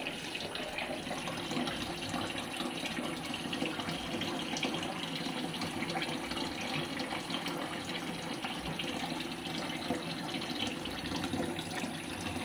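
Kitchen tap running steadily into a pot of water in a stainless steel sink, with splashing as fish are washed in it by hand.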